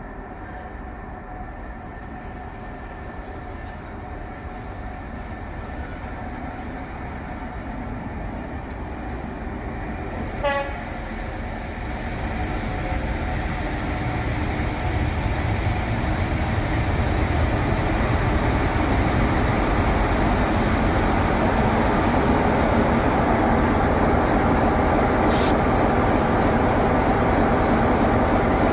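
Class 47 diesel locomotive's Sulzer twelve-cylinder engine approaching, growing steadily louder as the train draws into the platform. About ten seconds in there is a brief horn toot, and a faint high-pitched squeal comes and goes.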